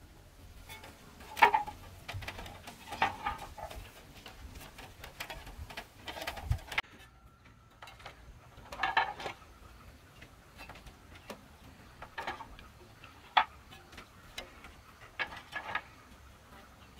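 Clay roof tiles clacking against each other as they are handled and stacked: scattered sharp knocks, one every second or two, with a few louder clacks.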